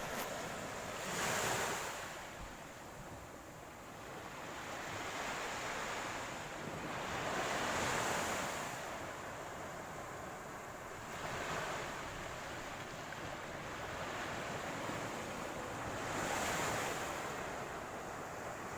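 Ocean waves breaking on the shore, each wave swelling and washing in every few seconds over a steady wash of surf, with some wind on the microphone.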